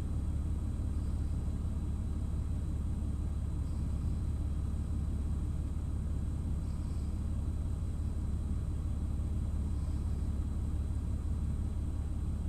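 A steady low rumble with a faint, thin high-pitched whine held over it, unchanging throughout.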